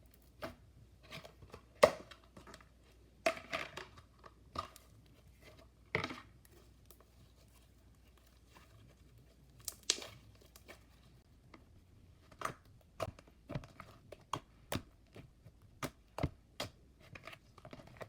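Clear slime being squished and poked by hand, giving irregular wet clicks and pops. They come a few seconds apart at first and closer together in the second half, with the loudest pop about two seconds in.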